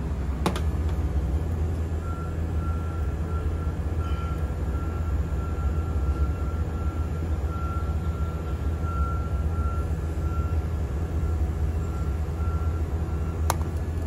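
Mitsubishi Electric MXY-2G20VA multi-split inverter outdoor unit running with its compressor on: a steady low hum with a faint high whine through the middle. A sharp click about half a second in and another near the end.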